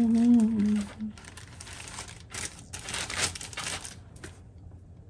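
Plastic packaging rustling and crinkling in several short bursts as a graded comic in its hard plastic case is handled.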